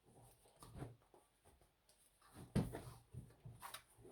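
Faint handling noises of a puzzle box being turned over in the hands, with one sharper knock about two and a half seconds in and a few small clicks after it.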